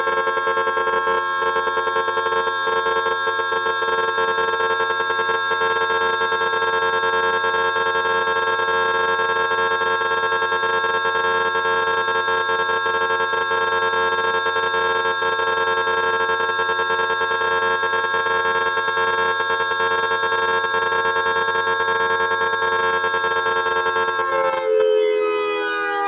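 Federal Signal Thunderbolt 1003B civil defense siren sounding a loud, steady tone at full speed. About a second and a half before the end it begins winding down, its pitch falling.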